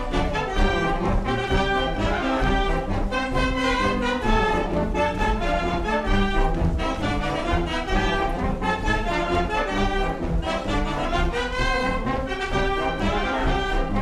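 Live band music led by brass, playing a dance tune with a steady beat: the accompaniment to an Azorean carnival dance.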